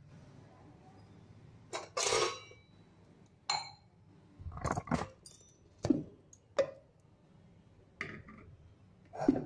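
Steel kitchen vessels and a mixer-grinder jar being handled and set down: a string of separate knocks and clinks, the loudest about six seconds in and near the end.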